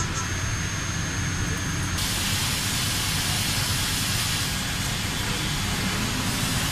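WFL M60 CNC mill-turn machine running a turning operation: a steady hiss of machining over a low machine hum, becoming brighter and harsher about two seconds in.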